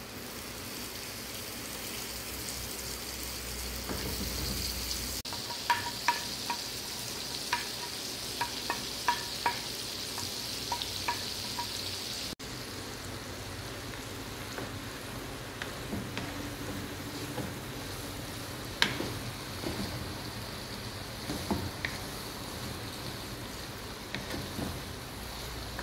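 Garlic spread and chopped seasoning sizzling in a nonstick frying pan, stirred and scraped with a wooden spoon. A quick run of sharp knocks comes about six to eleven seconds in, and scattered single knocks follow later.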